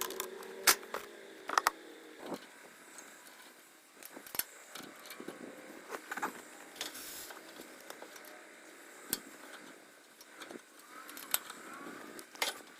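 Irregular sharp clicks and knocks, like objects being handled, loudest twice in the first two seconds and again near the end.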